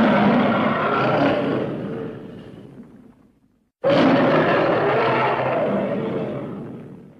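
King Caesar's monster roar sound effect from the Godzilla films, heard twice. Each roar starts suddenly and fades away over about three seconds, and the second begins about four seconds in.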